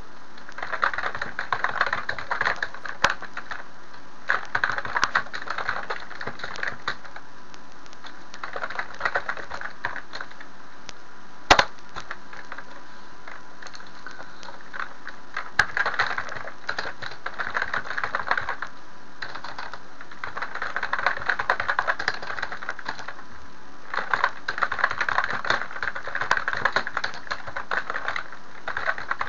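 Typing on a computer keyboard: rapid key clicks in bursts of a few seconds with short pauses between them, and one sharper, louder click partway through.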